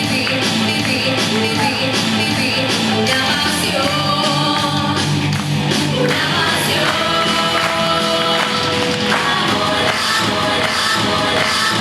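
Loud pop-rock song playing, with a singing voice holding long notes over a steady beat.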